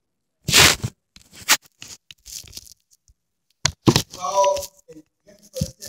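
Several short, loud bursts of rustling, crackling noise, with a woman's voice speaking a few words about two thirds of the way through.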